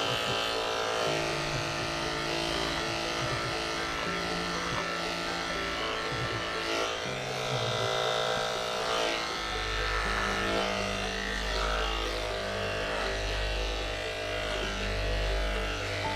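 Electric dog grooming clippers running with a steady hum as they trim a dog's face. Background music with a changing bass line plays under it.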